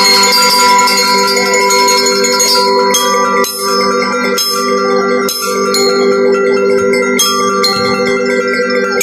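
Glockenspiels of a drum and lyre band playing: metal bars struck with mallets, with ringing notes over a held chord and occasional sharp strikes.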